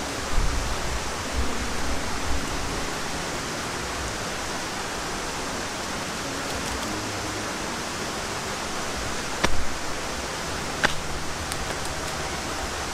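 A steady rushing hiss of outdoor background noise, with two sharp clicks a little over a second apart about two-thirds of the way through.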